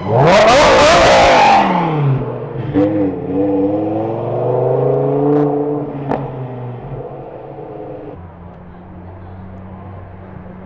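A supercar's engine revs hard in a sudden loud blast as the car accelerates, then settles to a lower note that rises and falls, with a couple of sharp cracks. It then fades to a quieter steady hum.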